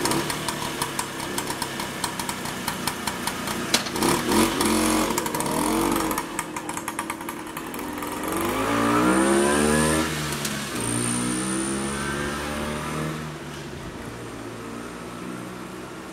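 Rebuilt 1960s Vespa VNB single-cylinder two-stroke engine running with a rapid popping beat, then revving and rising in pitch as the scooter pulls away and accelerates. It fades into the distance near the end.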